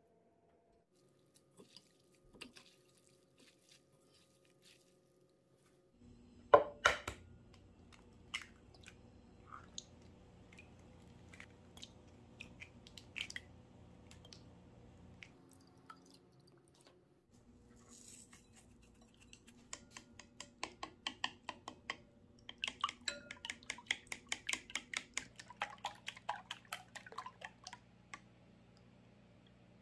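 Eggs cracked into a glass bowl, with one sharp crack about six seconds in and scattered taps after it. About twenty seconds in comes a long run of fast clicks lasting about eight seconds: wooden chopsticks beating the raw eggs against the sides of the glass bowl.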